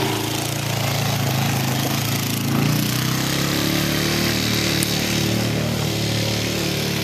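Sport quad ATV engine running under throttle as the quad spins in circles, its pitch wavering and rising briefly a little under three seconds in.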